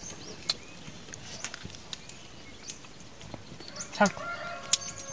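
Scattered light clicks and knocks, and a short wavering animal call about four seconds in.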